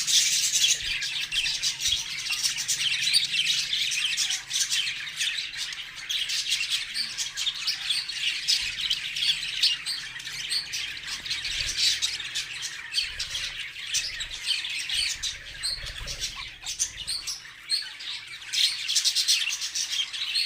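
Budgerigar chattering: an unbroken stream of rapid, high chirps.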